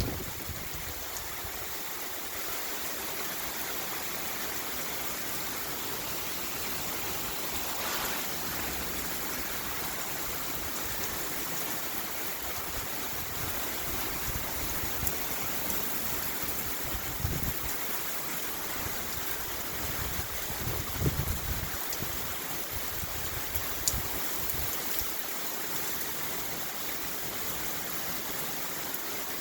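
Steady heavy rain hissing, with a few brief gusts of wind rumbling on the microphone, the strongest about two-thirds of the way through.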